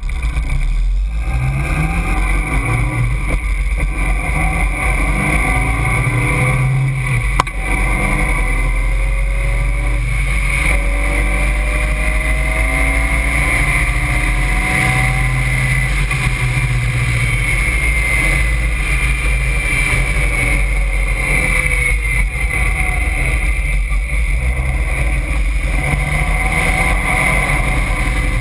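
Caterham Seven's engine heard from its open cockpit, revs climbing in several steps through the gears over the first several seconds, then running hard at steadier, slowly rising and falling revs. A sharp click comes about seven seconds in.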